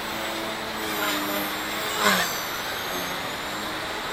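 XK K130 electric RC helicopter with a 3D-printed main gear flying overhead: a motor whine and rotor buzz whose pitch wavers as the throttle changes, over a steady hiss. A brief louder swell with a falling pitch comes about two seconds in.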